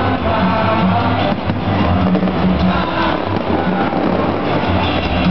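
Loud music with a steady beat, accompanying a fireworks show.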